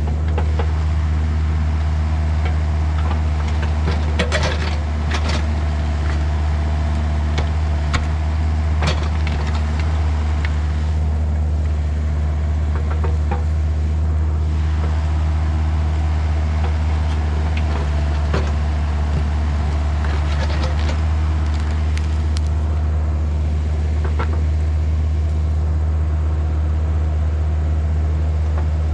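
Volvo EC35C mini excavator's diesel engine running steadily, with scattered irregular knocks and clanks from the bucket and arm working against a black locust stump.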